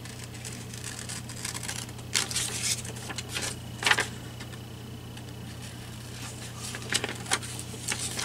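Scissors snipping through paper, a handful of short separate cuts with a light rustle of the sheet.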